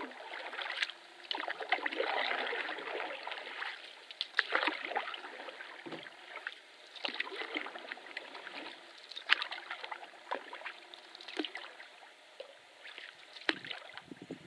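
Canoe paddling on calm lake water: the wooden paddle dipping and pulling, with a steady trickle and splash of water and scattered sharp drips and knocks every second or two.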